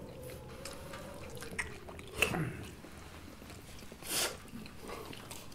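People chewing and biting into sheep's head meat, with small mouth clicks and two louder short noises about two and four seconds in.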